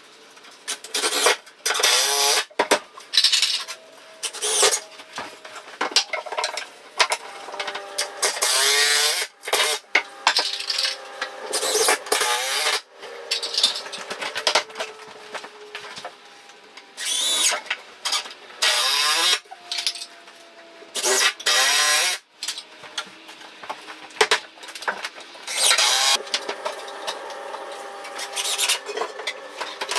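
Cordless drill-driver working into a pine bed rail in many short bursts of a second or two, its motor whine rising as it spins up and cutting off, with knocks from handling between the bursts.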